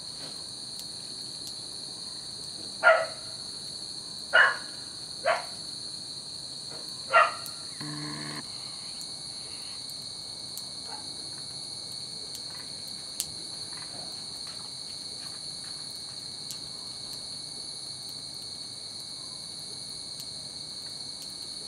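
Steady high-pitched chorus of crickets or similar night insects. A few seconds in, four short, loud, sharp sounds cut through it, followed by a brief low buzz and, later, a single click.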